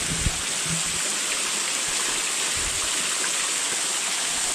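Small waterfall spilling in thin streams off a limestone ledge and splashing onto the rocks below, a steady even rush of falling water. A few soft low bumps near the start.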